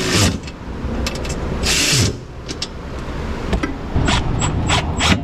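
A red cordless power tool driving a bolt during auto repair work: a short burst of noise about two seconds in, then a quick run of sharp clicks near the end.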